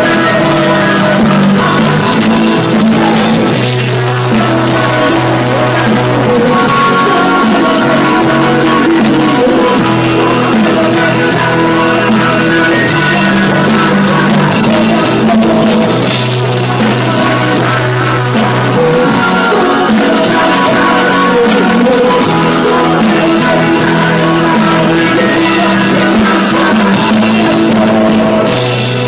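A rock band playing live: guitar over a bass line that changes note every few seconds, with drums.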